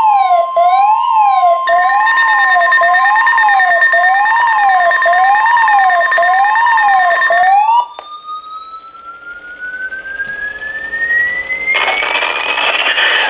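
NOAA Weather Radio's steady 1050 Hz warning alarm tone, overlaid by a weather radio receiver's warbling electronic siren that sweeps up and down about once a second, sounding the alert for a test tornado watch. A second steady alert tone joins about two seconds in. All the tones cut off together about eight seconds in. A slowly rising electronic whistle follows, with a burst of noisy static near the end.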